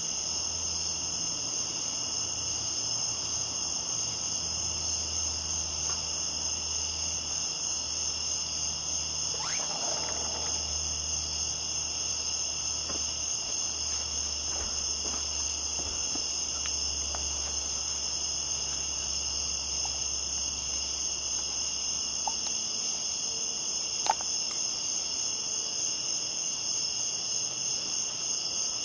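Crickets chirping in a steady, dense night chorus, high-pitched and unbroken. Underneath is a low hum that stops about three-quarters of the way through, and a single sharp click comes near the end.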